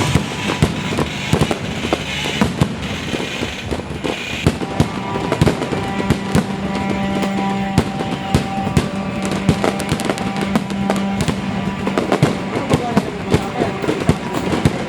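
Fireworks bursting and crackling in quick, irregular succession, with music playing underneath, its held notes clearest through the middle of the stretch.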